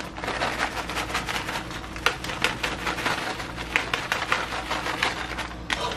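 Plastic bag of shredded sharp cheddar crinkling as the cheese is shaken out into a pot: a steady run of small crackles and clicks.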